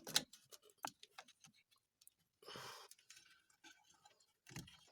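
Scattered small clicks and taps of hand work on a rear drum brake's shoe retaining pins, with a short burst of rustling noise about two and a half seconds in.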